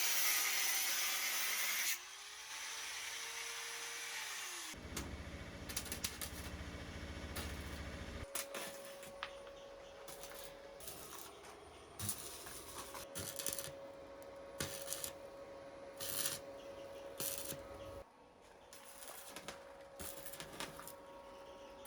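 Metalworking tool sounds in a run of edited clips. A power tool runs loudly for about two seconds and cuts off, followed by a low buzz lasting a few seconds. After that come scattered sharp taps and clicks over a faint steady tone.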